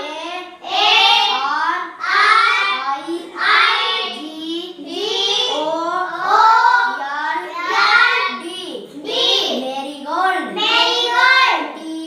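A young boy's voice chanting words one after another in a sing-song recitation, a short rising-and-falling phrase about every second, as he names flowers on a chart.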